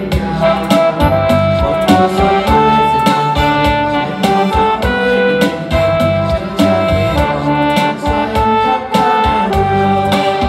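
Electronic keyboard playing an instrumental passage of a hymn: a lead melody of held notes over a steady drum beat.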